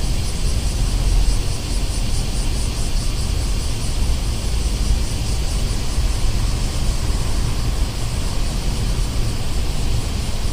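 Night-time city street ambience: a steady low rumble of distant traffic under an even hiss, with a faint rapid high pulsing throughout.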